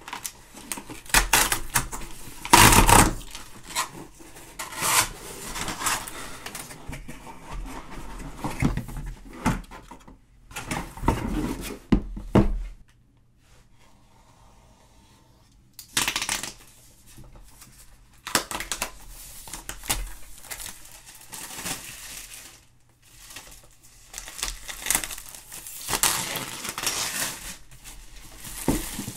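Cardboard packaging being opened and handled: rustling, scraping, tearing and light knocks of cardboard against the desk in irregular bursts, with a short quiet pause midway.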